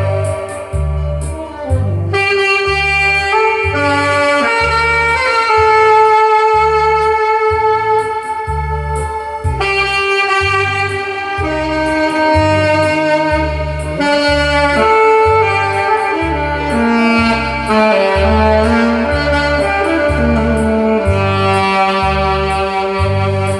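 Saxophone playing the melody of a Korean trot ballad over a backing track with a steady bass beat.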